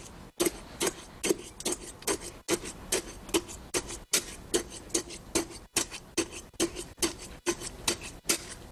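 A steel tamping rod being stroked up and down in fresh concrete inside a metal measuring bucket, each stroke giving a short knock, about two to three a second. This is rodding to consolidate the concrete so it fills all the corners of the bucket.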